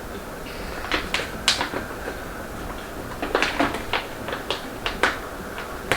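Irregular light clicks and knocks, about a dozen, in two loose clusters: one about a second in, and a busier run from about three to five seconds in.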